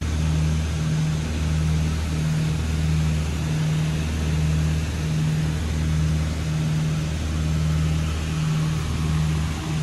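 Cabin drone of a Piper Twin Comanche's two engines and propellers in flight, steady and loud with a deep throbbing beat that pulses about once or twice a second. The beat is typical of the two propellers turning at slightly different speeds.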